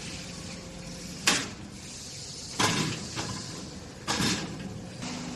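Steel cabinet drawer and its ball-bearing slides being handled: a sharp metal knock, then a longer sliding clatter of about half a second, then another knock.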